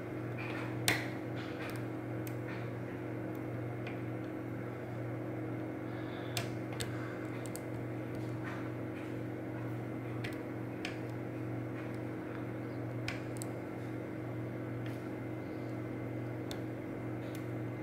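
Faint, scattered small metallic clicks and scrapes of a dimple pick working the pins of a Goal V18 dimple lock held under a tension wrench, over a steady low hum.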